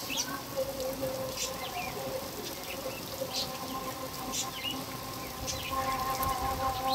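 Heavy monsoon rain falling steadily on a flooded yard, with short bird chirps about once a second and a steady low hum underneath.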